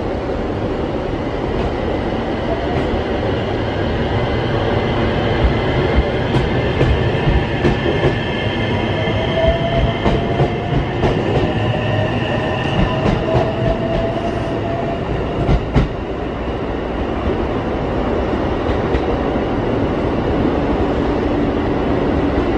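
JR West 227 series 500 'Urara' electric multiple unit pulling out and accelerating past, its motors whining in tones that rise slowly in pitch. From about five seconds in, the wheels clack repeatedly over the rail joints; the clacking stops near the sixteen-second mark.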